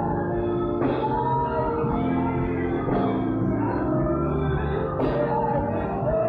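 Live gospel band music: sustained keyboard chords over a strong bass line, with voices singing along.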